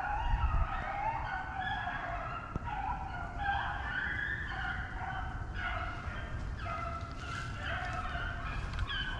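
A pack of rabbit hounds baying in chorus while running a rabbit: many overlapping voices, each call held briefly at a changing pitch, going on without a break.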